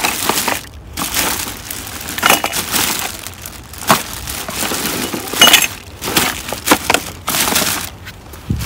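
Plastic trash bags crinkling and rustling as a bin of discarded household goods is rummaged through, with glassware clinking sharply against other items several times.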